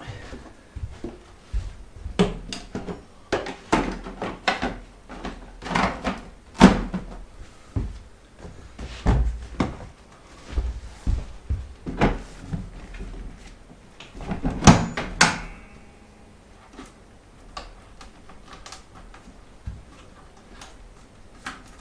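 A series of irregular knocks and clunks, loudest about a third of the way in and again about two-thirds in, thinning to a few light ticks near the end.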